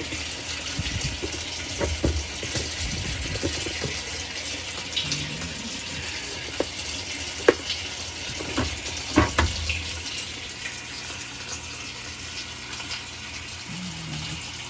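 Water running steadily into the tub of a Whirlpool top-loading washing machine as it fills, with a few sharp clicks and knocks partway through.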